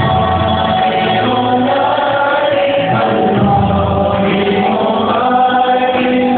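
A group of male voices singing a nasheed in harmony, holding long sustained notes that shift slowly in pitch.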